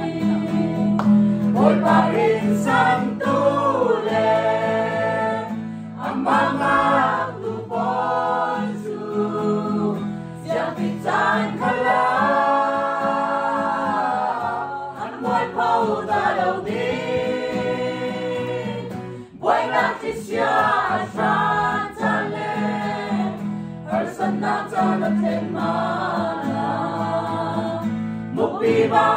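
A small mixed choir of men and women singing a gospel song together over a steady low backing, with a brief break for breath about two-thirds through.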